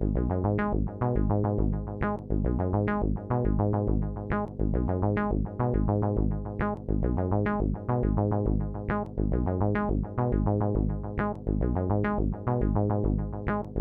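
Electronic outro music with synthesizer notes over a steady beat.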